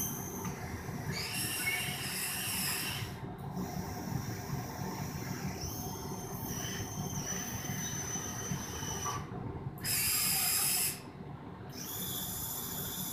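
Small electric motors of a remote-control model excavator whining in short runs as the boom, arm and bucket are worked, each run starting and stopping with the joystick moves. The loudest run comes about ten seconds in.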